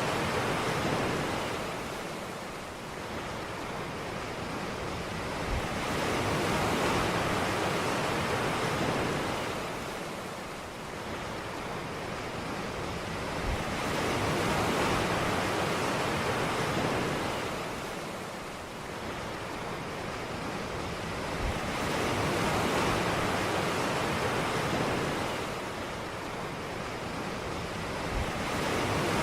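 Ocean waves washing onto a beach: a steady rushing surf that swells and recedes about every eight seconds.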